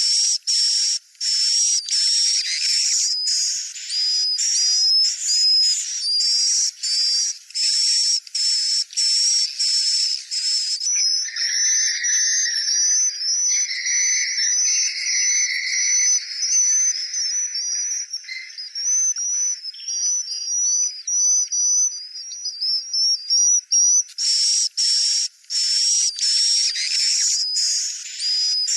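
Swiftlet lure recording of edible-nest swiftlet calls: rapid, high-pitched chirping twitters. About eleven seconds in it changes to a different call pattern with a lower warbling, and the dense chirping returns near the end.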